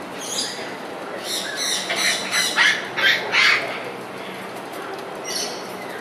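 Parrots squawking: a harsh call just after the start, a quick run of loud squawks between about one and three and a half seconds in, and another call near the end, over steady background noise.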